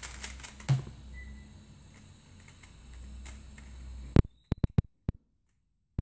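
Angstrom Valk 3 Elite M speedcube turned very fast during a solve: a dense, rapid clatter of plastic layer turns. About four seconds in comes a single sharp knock, followed by a few lighter separate clicks.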